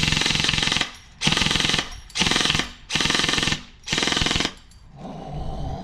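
ARP9 electric airsoft gun (AEG) firing on full auto in five short bursts of about half a second each, every burst a rapid stream of shots.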